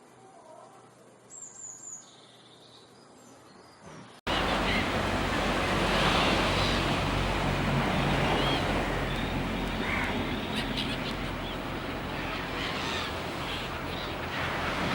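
Faint bird chirps and calls, then an abrupt cut about four seconds in to a loud, steady rushing noise with a low rumble, with more bird calls and a few clicks over it.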